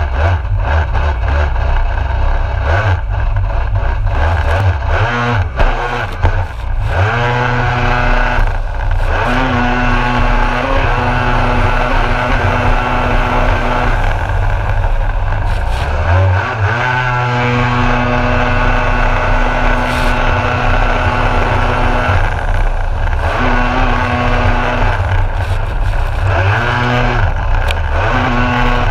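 Kawasaki SX-R stand-up jet ski's engine running hard, its pitch dropping off and climbing back up several times as the throttle is eased and opened through turns, over the steady rush of water and spray against the hull.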